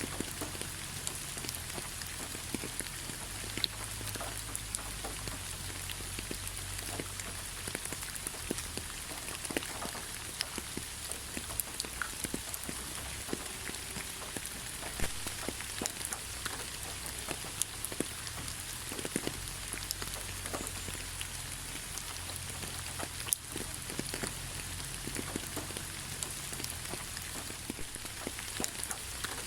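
Steady rain, with many separate, close drops ticking sharply over the hiss and a low rumble underneath.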